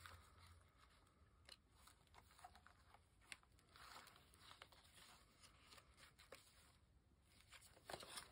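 Faint paper rustling and soft clicks as hands handle and leaf through a small handmade paper-and-fabric journal booklet.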